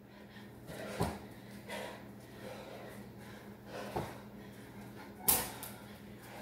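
Dull thumps of feet and hands landing on a wooden floor during burpees and broad jumps: several scattered impacts, the loudest and sharpest about five seconds in, over a faint steady low hum.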